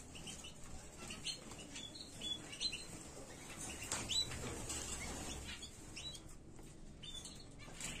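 Caged canaries and goldfinches giving short, scattered chirps, with brief flutters of wings.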